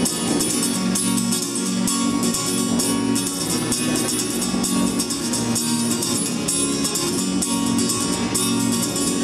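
Acoustic guitar strummed in a steady rhythm, playing the instrumental introduction of a song.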